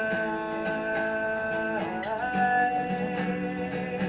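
Acoustic guitar strummed steadily under a worship song. A long held note slides up to a new pitch about two seconds in.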